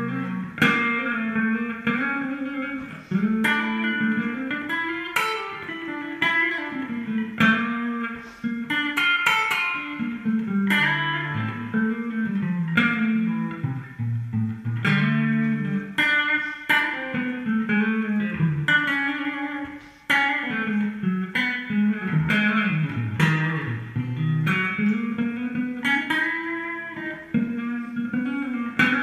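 Electric guitar playing a melody of picked notes, some of them gliding up and down in pitch.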